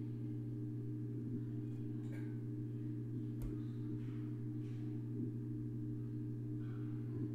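A steady low hum at one constant pitch, with a couple of faint clicks a few seconds in.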